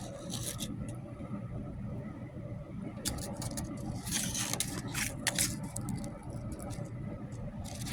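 Scattered rustles, scrapes and clicks of hands handling a small plastic toy and its packaging, over a steady low hum.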